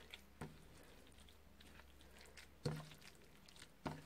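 Faint wet squelching of a hand kneading a grated zucchini and flour mixture in a dish, with three brief soft taps, the loudest a little past halfway.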